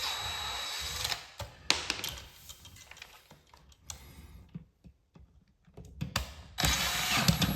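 Power drill running in two short bursts, about a second at the start and again near the end, backing out the terminal screws on a wall outlet to free its wires, with small clicks and taps in between.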